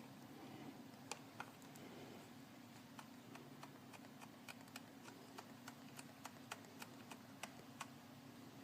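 Faint, irregular small clicks and ticks of hands and tools working a cable fitting on a motorcycle carburetor, over a steady low hum.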